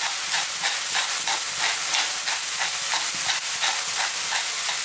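Diced onions and garlic sizzling in hot olive oil in a non-stick frying pan. Over the sizzle comes a regular crunching, about three strokes a second, from a pepper mill grinding black pepper into the pan.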